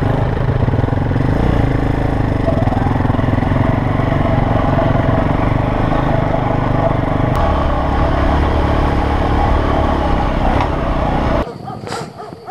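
Motorcycle engine running steadily and loudly, stopping abruptly near the end.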